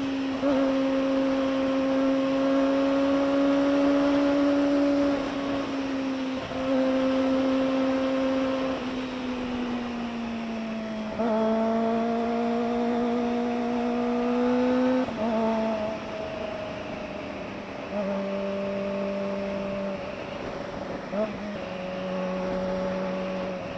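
Kawasaki ZX-25R's 250 cc inline-four running through an SC Project slip-on muffler at steady high revs. The pitch holds for a few seconds at a time, then steps to a new level, drifting lower overall across the stretch.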